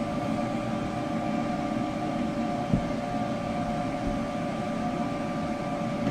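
Weedo M2 desktop 3D printer running with its fans on while it loads filament: a steady whirring hum with a few constant whining tones, and a single small click near the middle.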